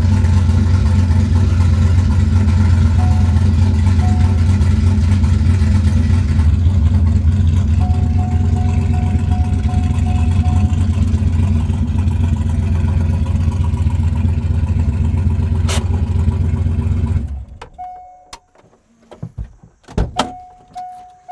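C5 Corvette race car's V8 running steadily at low revs, then switched off about seventeen seconds in. A few clicks and knocks follow.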